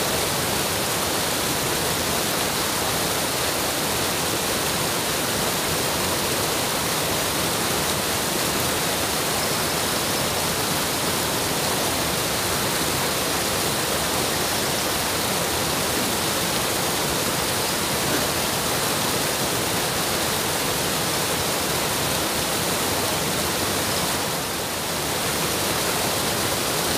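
Water rushing steadily over a small concrete weir into a stream, an even rushing noise with a brief dip in loudness near the end.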